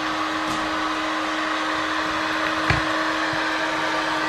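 Handheld heat gun blowing steadily with a constant hum while it heats tinted film on a car window. A single short knock comes a little past halfway.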